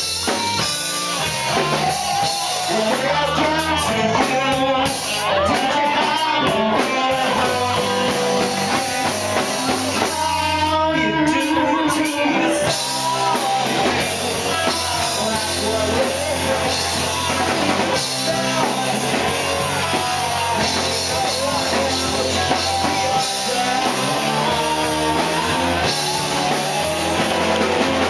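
Live rock band playing, with amplified electric guitars over a drum kit.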